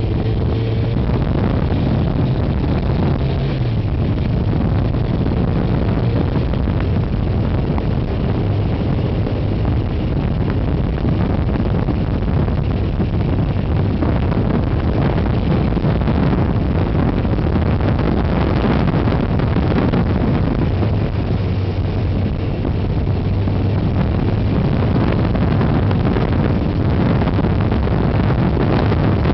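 Honda CBR1100XX Blackbird's inline-four engine running steadily at road speed, mixed with heavy wind noise on the microphone. The engine note dips once about three to four seconds in.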